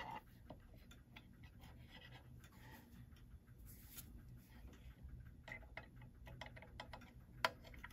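Faint, irregular small clicks and light scraping of a bushing cutter being worked into a brass clock plate, with one sharper click near the end.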